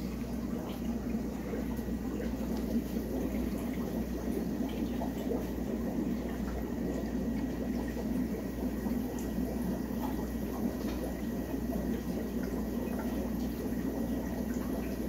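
Steady bubbling and trickling of water in a running aquarium, with a low hum underneath.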